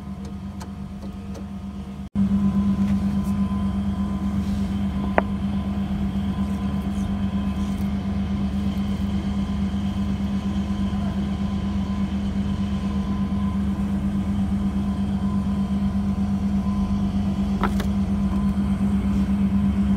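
Steady low machine hum with a strong single pitch. It cuts out for an instant about two seconds in and comes back louder. A sharp click about five seconds in and another near the end.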